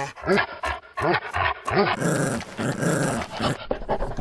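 A small dog's voice: a few short whimpering grunts, then a rough growling pant for about a second and a half, as the dog humps a leg.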